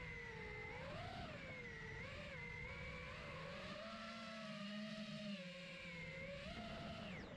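Brushless motors of an FPV racing quadcopter whining, their pitch rising and falling with the throttle over a low rumble of wind, heard from the drone's onboard camera. Near the end the whine drops sharply as the throttle is cut.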